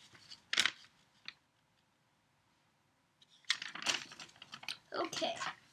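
Clicks and scratchy plastic rustling from handling a toy's plastic packaging while working it open: one sharp click, a pause, then a rapid flurry of clicks and rustles.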